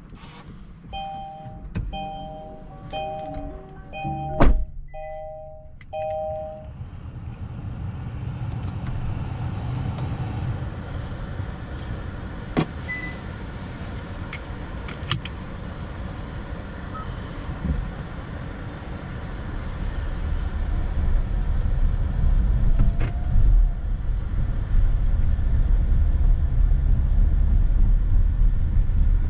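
Car warning chime ringing a two-note ding about once a second for six seconds or so, with a solid thump near the middle of the chimes. Then the Kia Sorento hybrid drives off, and its low road and drivetrain rumble builds louder in the last third.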